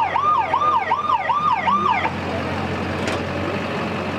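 Electronic siren yelping, its pitch sweeping up and down about twice a second, then cutting off about two seconds in. A pickup truck's engine idles steadily under it and on after.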